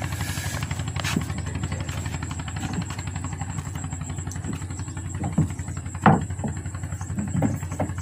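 An engine running steadily with a fast, even pulse, and a few light knocks, the loudest about six seconds in.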